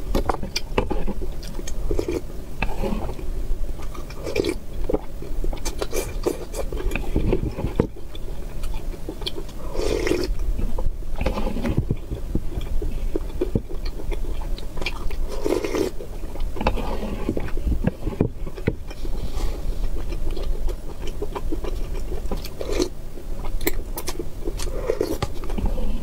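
Close-up eating sounds: chopsticks and a ceramic spoon clicking and scraping in a bowl of spicy red broth, with slurps and chewing in between.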